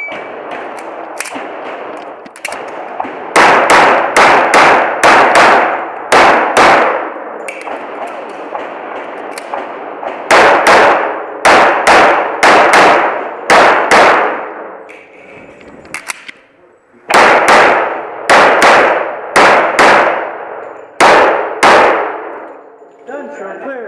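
A shot timer gives a short start beep, then a semi-automatic handgun fires over twenty rounds, mostly in quick pairs, in three strings a few seconds apart. Each shot rings and echoes off the concrete walls of the range bay.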